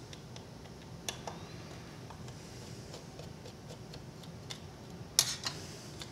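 Small Phillips screwdriver turning out tiny screws from a small plastic device case: scattered faint clicks and ticks, a little louder about a second in. A short clatter of sharp clicks, the loudest sound, comes a little after five seconds as the small parts are handled.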